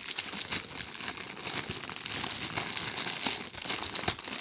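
Small plastic bag crinkling and rustling as a toy figure is worked out of it: a dense run of small crackles.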